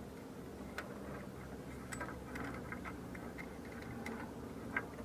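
Faint, scattered light metallic ticks and clicks as a spark plug and its socket are worked back into the cylinder head by hand, over a steady low hum.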